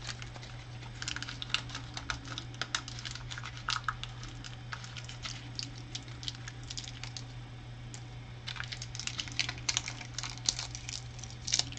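Small plastic Lego pieces clattering as a cup of them is emptied out, in two runs of rapid clicking with a short lull between. A steady low hum sits underneath.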